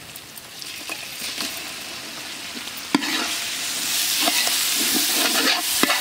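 Ginger-garlic paste frying in hot oil with fried onions in a large aluminium pot, sizzling louder from about three seconds in, while a steel ladle stirs it and knocks against the pot a couple of times.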